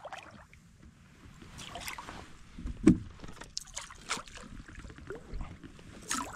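A hooked fish splashing and thrashing at the water's surface as it is hand-lined to a landing net, with irregular splashes and knocks and one louder knock about three seconds in.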